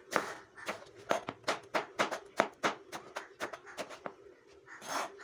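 Kitchen knife chopping eggplant into cubes on a plastic cutting board: quick, sharp taps of the blade hitting the board, about three or four a second, spacing out near the end. A faint steady hum sits underneath.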